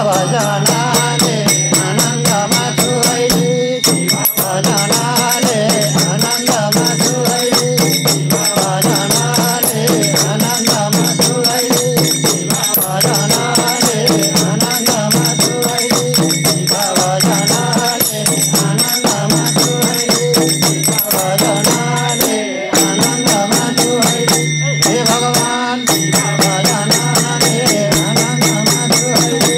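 Nepali devotional bhajan music: a group beating hand frame drums in a steady driving rhythm with small hand cymbals ringing over it and a melody line on top, with a couple of brief breaks in the beat.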